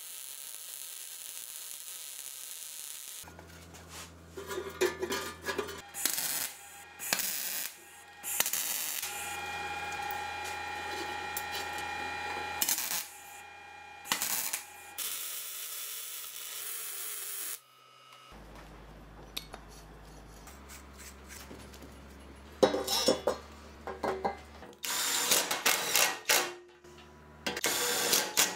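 A MIG welder sizzles steadily on sheet steel for the first few seconds. Then comes a run of metal clinks and knocks as the steel box is handled and worked on a steel bench, over quiet background music. A drill-driver runs in short bursts near the end, driving screws into the tank's top plate.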